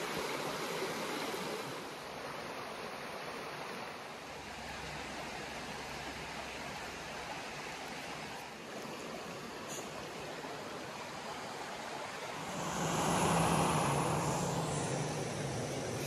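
Brook water running over rocks, a steady rushing. About twelve seconds in, a louder rush with a low steady hum joins it.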